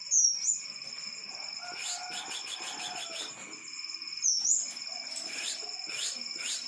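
Kemade papua songbird singing: two loud, sharp, sweeping whistled notes, one at the very start and one about four seconds in, with quick runs of repeated trilled notes between them and near the end. A steady high-pitched ringing runs underneath.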